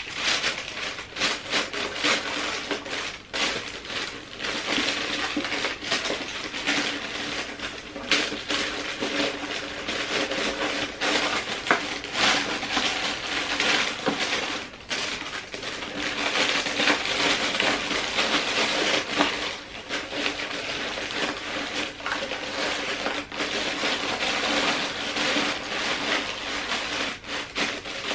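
Tissue paper and gift-wrapping paper rustling and crinkling continuously as a gift box is packed and wrapped by hand, with many small sharp crackles.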